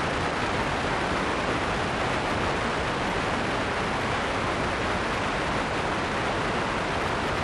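Analog TV static: a steady, even hiss of noise, the sound that goes with a snowy, untuned picture.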